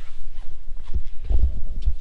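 Handling noise from a handheld camera being carried as a person gets up and moves, with rustling, shuffling steps and a cluster of low thumps in the second half.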